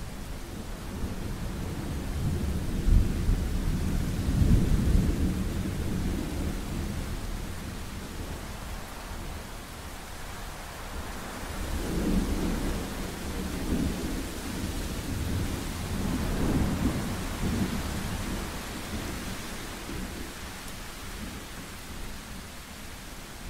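Thunderstorm: steady rain hissing while thunder rumbles. A long, heavy roll of thunder comes a few seconds in, and two weaker rolls follow past the middle.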